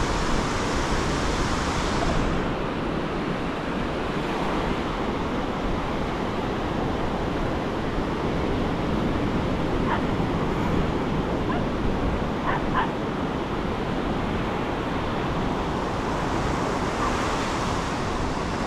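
Ocean surf washing up and back on a sandy beach, a steady rushing wash. A few short, higher sounds stand out about ten and twelve seconds in.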